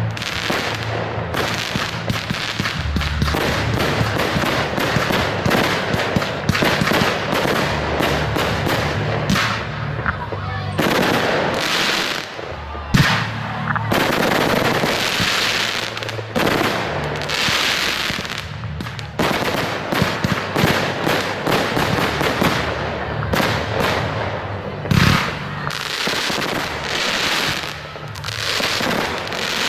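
Fireworks display: a dense, continuous barrage of shells bursting and crackling, with especially sharp bangs about 13 seconds in and again near 25 seconds.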